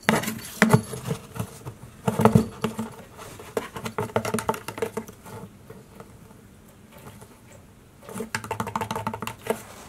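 Cats' paws scrabbling and batting against a cardboard box, in bursts of quick scratching taps and knocks on the cardboard, with a lull of a few seconds before the last burst.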